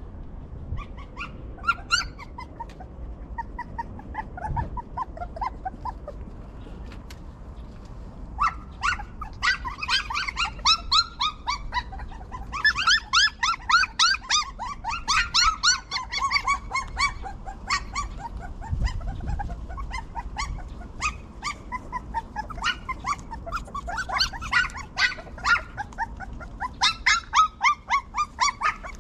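Young puppies whining and squealing in a rapid series of short, high-pitched cries. The cries are scattered at first and come in dense runs from about eight seconds in.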